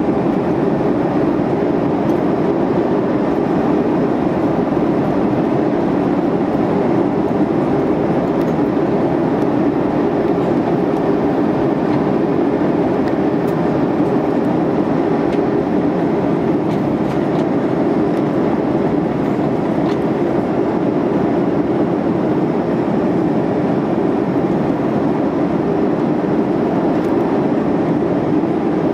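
Airbus A340-300 cabin noise heard from a window seat over the wing during descent: a steady rush of airflow over the fuselage mixed with the low hum of the CFM56 engines, unchanging throughout.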